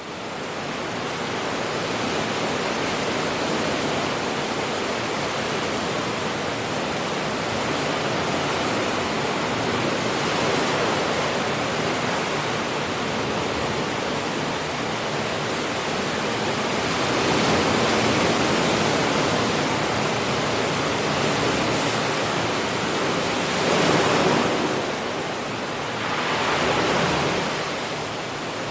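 Rushing water: a steady, loud hiss-like roar that swells a few times in the second half.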